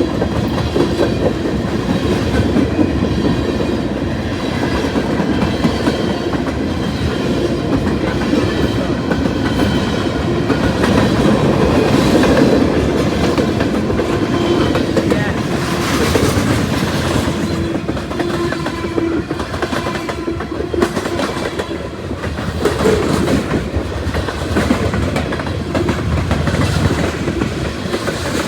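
A long freight train's cars rolling past at close range: a steady rumble with wheels clicking over the rail joints and some faint ringing from the wheels and rails.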